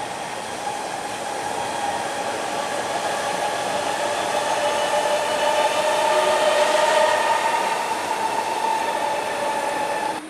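Kawasaki-built C151 metro train running past on an elevated track: steady running noise with a whine on top, growing louder to a peak about seven seconds in, then easing slightly.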